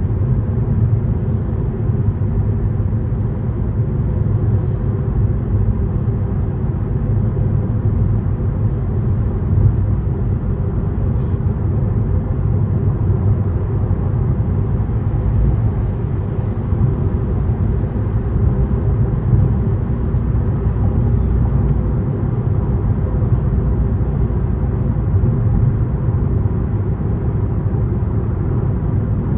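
Steady low rumble of a Toyota car driving at highway speed, heard from inside the cabin: tyre and engine road noise.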